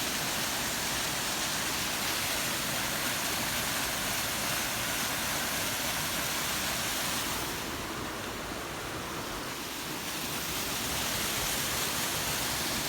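Steady rushing of a waterfall, a dense even roar of falling water, softening briefly in the upper range about eight seconds in.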